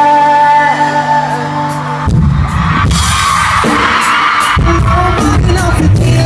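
Live pop-rock band music at a concert: a held chord rings out, then drums and guitars come in hard about two seconds in with repeated drum hits.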